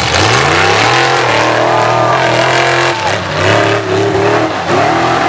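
Mud-bog mega truck's engine revving up sharply and holding at high revs, then dipping and climbing again about three seconds in.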